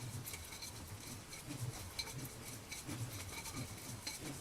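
Nunchaku spun steadily: faint, even swishes about two to three times a second, with light clinking of the chain.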